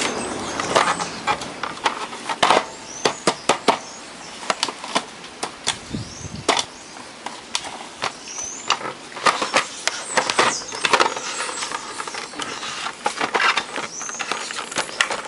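Black plastic cabinet of a portable CD/AM-FM radio being handled and pried at by hand: a rapid, irregular run of sharp plastic clicks and knocks with scraping and a few short squeaks.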